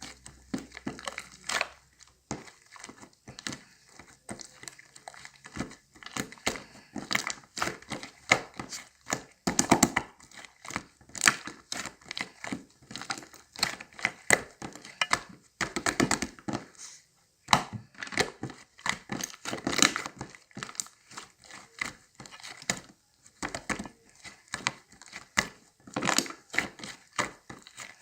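Continuous irregular crinkling and rustling, like something being handled and crumpled, with scattered sharp clicks and taps.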